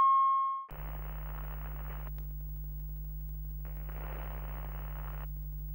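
A steady test tone fades out within the first second. It gives way to a low, steady electrical hum, with two stretches of hiss like TV static, each about a second and a half long, over an old TV test-card end screen.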